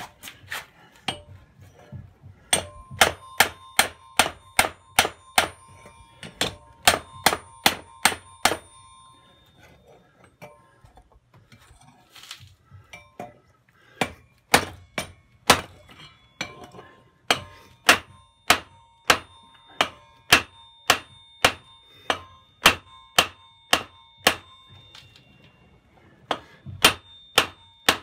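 Hand hammer striking red-hot steel on a small anvil, bending the end of a hatchet handle into a loop. The blows come in runs of about two to three a second, each with a clear metallic ring, with a pause of a few seconds in the middle.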